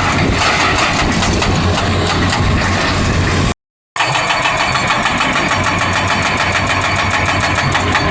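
Excavator diesel engine running hard while a hydraulic breaker hammers. After a brief dropout a little past the middle, the breaker strikes fast and evenly at about eight blows a second over the engine.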